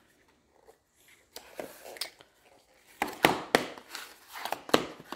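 Cardboard packaging being handled: white paperboard boxes and inserts slid, rustled and knocked on a countertop. A few light rustles, then a string of sharp taps and scrapes that grows louder in the second half.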